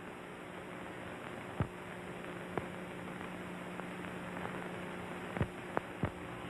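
Background noise of an early-1930s film soundtrack: a steady hiss with a low hum, broken by a handful of sharp clicks and pops.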